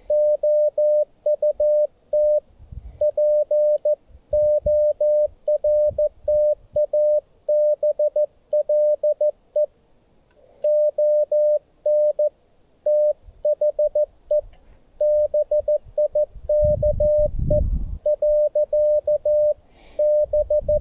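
Morse code (CW) audio from a Xiegu G90 HF transceiver: a single steady tone of about 600 Hz keyed on and off in dots and dashes, with short pauses between characters and words. A low rumbling noise comes in briefly near the end.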